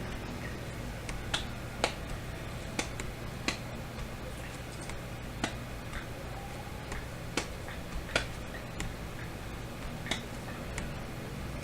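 A dozen or so sharp clicks or taps at irregular intervals, over a steady low hum.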